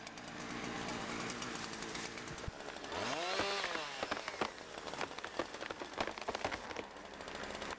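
Burning vegetation crackling and popping in a wildfire, with a pitched sound that rises and then falls about three seconds in.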